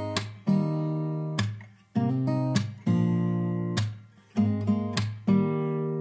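Background music: an acoustic guitar strumming chords about once a second, each chord left to ring and fade before the next.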